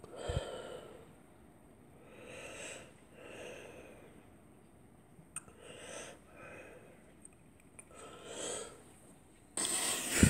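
A person breathing close to the microphone: five or six soft, separate breaths a second or two apart, then a louder sudden burst of noise near the end.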